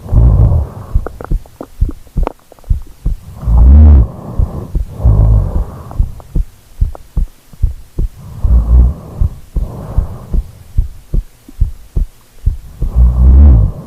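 A person snoring loudly and close to the microphone: low snores come in pairs, the pair repeating about every four and a half seconds, with faint short clicks in between.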